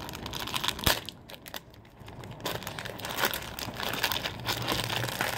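Clear plastic packaging bag crinkling as it is handled, with a sharp click about a second in.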